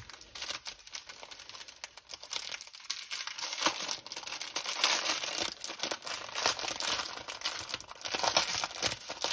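Small plastic bags of diamond-painting drills crinkling and rustling as they are handled, a dense run of irregular crackles.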